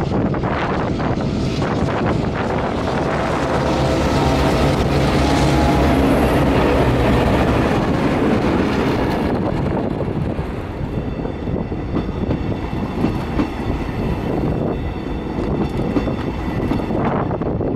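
Diesel locomotive-hauled train passing. The engine's low drone is loudest about six seconds in and fades after about nine seconds. It leaves the rumble and clatter of wheels on the rails, with wind buffeting the microphone.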